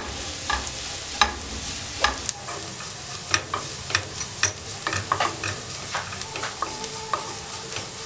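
Spatula stirring and scraping shallots, curry leaves and crushed red chilli frying in oil in a nonstick pan: a steady sizzle broken by sharp knocks of the spatula against the pan every half second or so. The chilli is being fried until its raw taste is gone.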